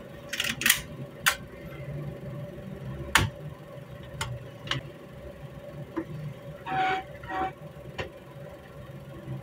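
Rifle parts being handled and fitted back together: a string of sharp metal clicks and clacks, the loudest about a second and three seconds in, and two short scraping rasps near the end, over a steady low hum.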